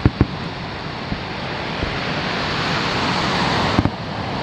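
Surf washing onto a sandy beach, a hiss that builds over about three seconds and then eases. A couple of sharp firework crackles right at the start and another pop a little before the end.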